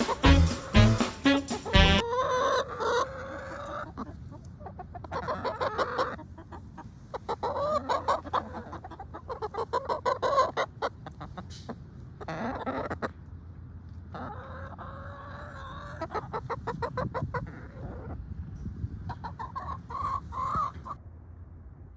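Chickens clucking and calling in a string of separate calls and quick cluck runs, after about two seconds of music at the start.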